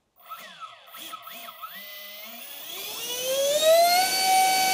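Twin 7000kv brushless electric ducted fans on a 2S lipo spooling up: an uneven whine at low speed for the first two seconds, then rising steadily in pitch and holding a loud, steady high whine at full throttle near the end.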